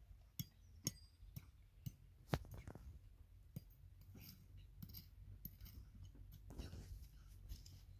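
A spoon digging and scraping in gravelly dirt: faint, scattered clicks and scrapes, the loudest a little over two seconds in.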